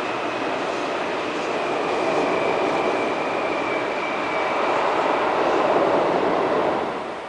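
Electric train running, with a steady high whine over the rumble that fades out about halfway through. The sound swells a little twice, then drops away near the end.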